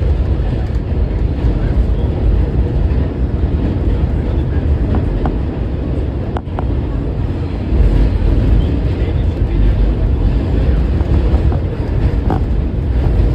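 New York City subway train running along the track, a loud steady low rumble with a few brief high squeaks scattered through it.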